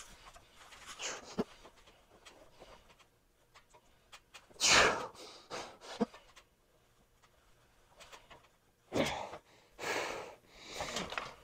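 A man breathing hard through a set of incline barbell bench press taken to failure: forceful, breathy exhales a few seconds apart, the loudest about five seconds in and several close together near the end.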